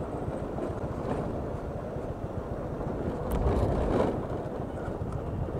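Motor scooter engine running as it rides along at low speed, with wind buffeting the camera microphone.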